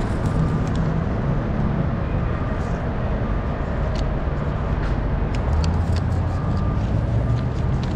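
Diesel semi-truck engine idling with a steady low rumble, with a few faint clicks over it.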